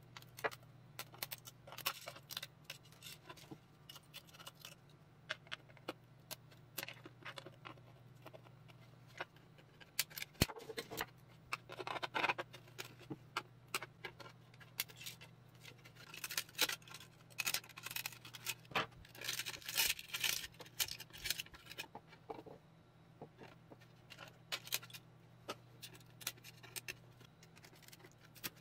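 Small flush cutters snipping and snapping printed PLA support material off a 3D-printed case: irregular sharp clicks and crackles, coming in denser runs partway through and again later on.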